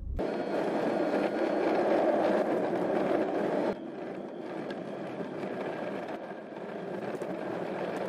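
Subaru Outback driving over an unpaved track: steady tyre and road noise with a rough, scraping texture, dropping in level a little under four seconds in.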